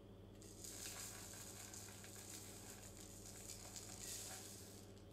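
Instant coffee granules trickling from a glass jar into a plastic jug: a faint, steady rustling hiss with small crackles, starting about half a second in and dying away near the end.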